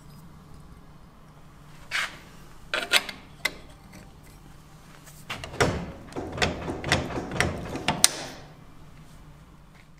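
Metal clicks and knocks as a route lever on a mechanical interlocking frame is handled and a safety wedge is fitted to lock it against being set back. There is a single click about 2 s in, a few clicks around 3 s, then a run of knocks and rattles from about 5.5 to 8 s.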